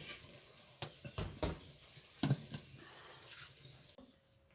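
A handful of short, sharp clinks and knocks of aluminium cooking pots, lids and a metal serving spoon being handled, spaced irregularly over about two seconds, then quiet.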